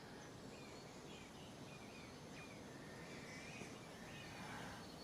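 Faint jungle ambience: a low steady background with scattered short bird chirps throughout.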